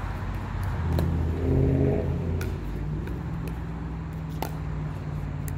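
A motor vehicle passing, its engine rising and then fading about a second in, over a steady low hum. A few sharp clicks stand out.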